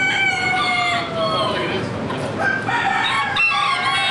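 Several roosters crowing, their long drawn-out calls overlapping one another, with other chickens calling around them.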